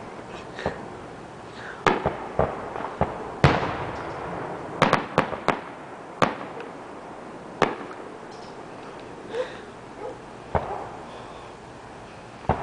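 Fireworks going off: about fifteen sharp bangs and pops at irregular intervals, bunched together in the first six seconds and sparser after. The loudest comes a little over three seconds in and trails off in an echo.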